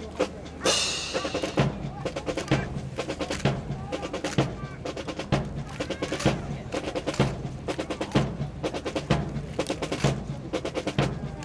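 Drill rifles clacking and being slapped in unison during a precision rifle drill. The sharp wooden clacks come in quick runs, with a heavier thud about once a second.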